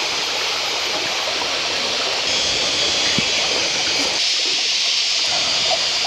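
Steady rushing and babbling of a small forest stream.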